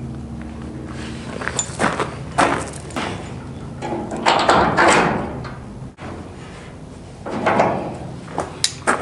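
Hand-work noises at the base of a wooden chicken coop frame: irregular scrapes and rustles, the longest about four seconds in, and a few sharp clicks and knocks near the end, over a faint steady hum.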